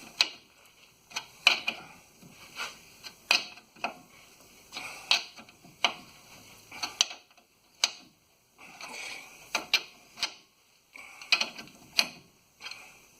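Hand wrench on freshly fitted rear U-bolt nuts for a final tightening: irregular sharp metallic clicks and short scrapes, about one or two a second, as the tool is worked and repositioned on the nuts.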